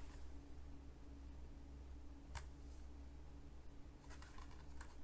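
Faint handling of a plastic Blu-ray case and its paper insert: a few soft clicks and rustles, one about two and a half seconds in and several more near the end, over a steady low electrical hum.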